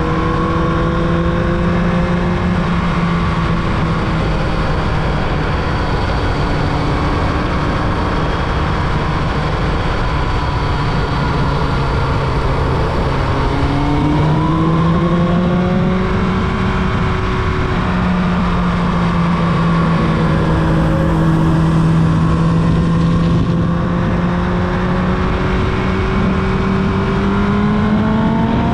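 Carbureted Yamaha YZF-R1's inline-four engine running under way at moderate revs, with a steady rushing noise underneath. The engine note sags slowly, then climbs about halfway through and again near the end.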